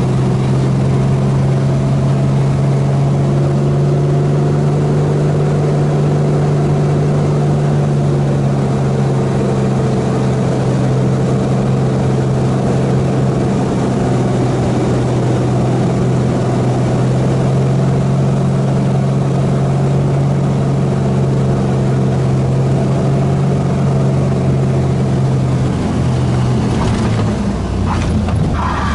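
A Helio Courier's Lycoming GO-480 geared six-cylinder engine and propeller droning steadily, heard from inside the cabin. Near the end the note drops slightly, and a few faint knocks follow.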